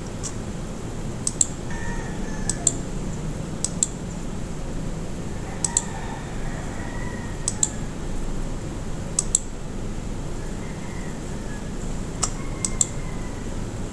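Sharp computer clicks, mostly in quick pairs every one to two seconds, over a steady low hum of room and machine noise.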